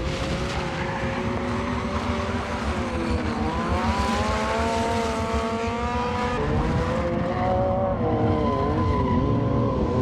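Sport bike engine held at high revs during a burnout, its rear tyre spinning on the asphalt. The engine note climbs a little about three and a half seconds in and wavers up and down near the end.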